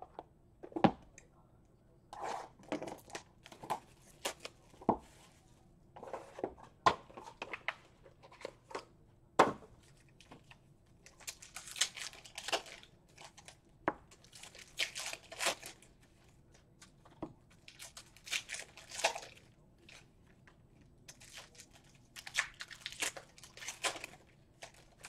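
Football trading-card boxes and packs being handled on a table: a run of sharp clicks and taps, then from about halfway through four bursts of pack wrappers being torn open and crinkled.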